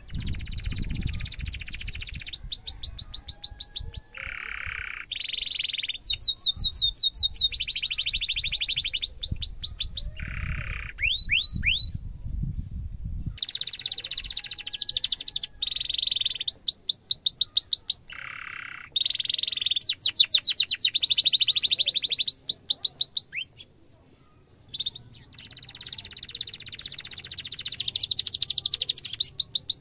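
Domestic canary singing a long, unbroken song made of fast trills (rapid runs of repeated sweeping notes) that switch from one phrase to the next. The song breaks off briefly about halfway through and again about four-fifths of the way in.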